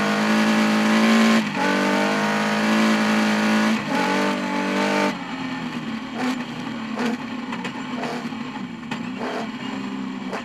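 Rally car engine heard from inside the cockpit, running hard at high revs with two brief breaks where gears change. About halfway through it drops suddenly to a lower, uneven note as the throttle is lifted, with short knocks from the car running over the rough dirt track.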